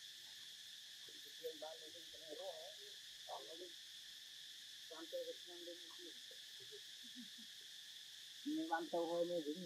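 Steady high drone of insects, with short low voices or calls coming and going over it, the loudest cluster near the end.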